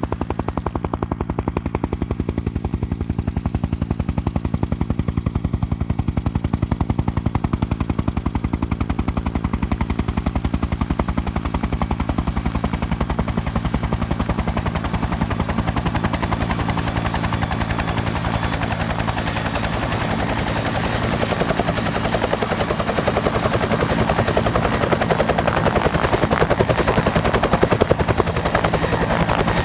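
Bell 212 helicopter heard from outside, its twin-turboshaft engines and two-bladed main rotor running continuously. The rotor beats rapidly and evenly under a thin, high turbine whine, and the sound grows louder and fuller in the second half.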